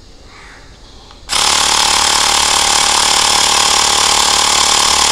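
Xiaomi Mi portable electric air pump switching on about a second in and running steadily and loudly, its compressor pumping air into a motorcycle tyre toward a 40 PSI cut-off.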